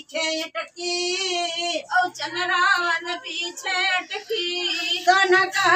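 A woman singing an Awadhi dhobi geet folk song unaccompanied, in high, held notes with a wavering ornamented pitch, phrase by phrase with short breaths between.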